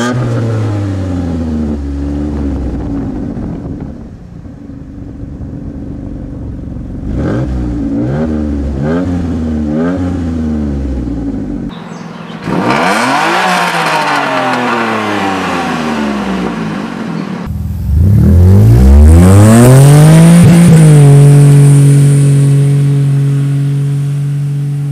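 Ford Taurus SHO's Yamaha-built DOHC 60-degree V6 being revved in several spliced exhaust clips. Quick blips rise and fall. Near the end a longer climb settles into a steady high note, the loudest part.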